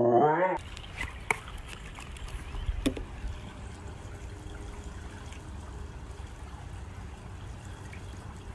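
A husky's howl, cut off about half a second in. Then the soft trickle and lap of pool water around a dog sitting on the pool step, over a low rumble, with a couple of faint clicks.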